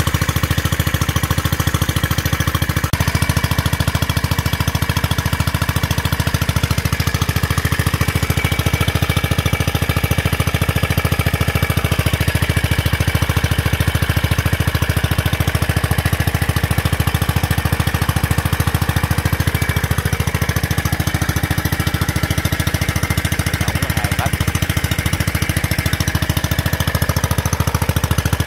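Kohler 4 single-cylinder air-cooled engine running steadily with a fast, even exhaust beat, driving a water pump for irrigating a rice field.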